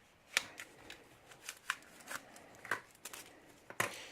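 A small cardboard box being opened by hand, giving a string of sharp clicks and light scrapes as its flaps and contents are handled.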